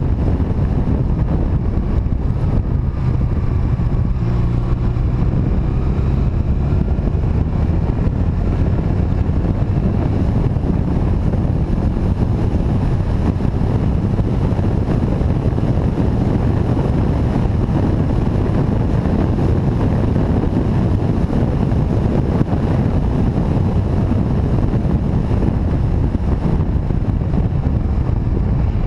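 Motorcycle riding at a steady speed: the engine's drone mixed with wind rushing over the microphone, even and unbroken throughout.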